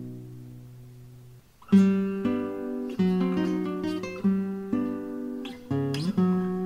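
Guitar music. A held low chord fades away, then from about two seconds in picked notes and chords ring out one after another, with a note sliding upward near the end.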